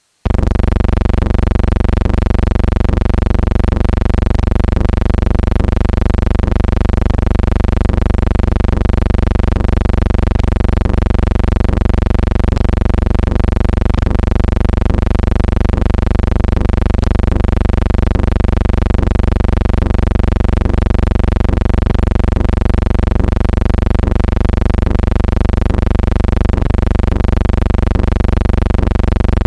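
A loud, steady buzzing drone with many even overtones, switching on abruptly just after the start and holding unchanged, with faint clicks every few seconds.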